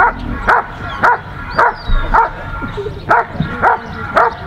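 A German Shepherd Dog barking steadily at a motionless protection helper, about two barks a second with one brief pause partway through. This is the guarding bark of Schutzhund protection work.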